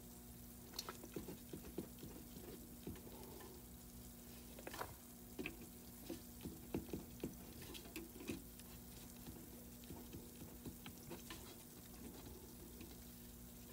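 Faint scratching and tapping of a marker pen writing figures on a paper form, mixed with small clicks of the diagnostic push-button on a Hayward salt-chlorinator control panel, over a steady low hum.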